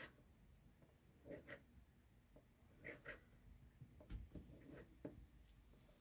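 Faint taps and light scrapes of a plastic knife cutting small pieces of modelling clay on a tabletop, a soft tap every second or so.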